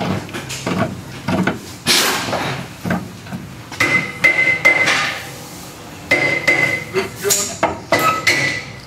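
Sharp metal-on-metal knocks and clanks as the rusty lower mounting bolt of a rear shock absorber is worked free and driven out of the shock's eye. Several of the strikes ring with a high metallic note.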